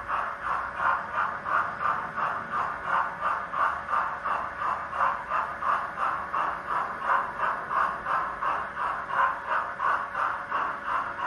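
Model steam locomotive's sound decoder chuffing steadily, about three to four chuffs a second, with a hiss over it.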